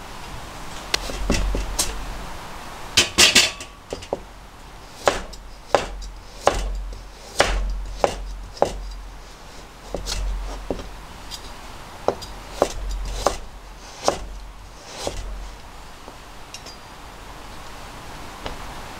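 Square-bladed vegetable knife cutting a carrot on a plastic cutting board: about a dozen separate knocks as the blade goes through onto the board, roughly one a second. A brief louder clatter comes about three seconds in.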